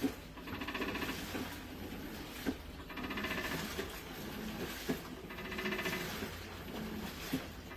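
Hitachi BeatWash top-loading washing machine agitating, with a sharp knock about every two and a half seconds as the wash action reverses and a high squealing creak between the knocks. The owner takes this for an abnormal noise on the machine's first wash and has asked for a replacement.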